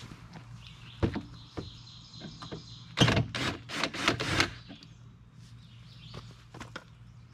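Cordless drill/driver run in several quick spurts for about a second and a half, about three seconds in, backing out a bolt that holds the UTV's outside fender panel. Scattered light clicks and knocks of tool handling come before and after.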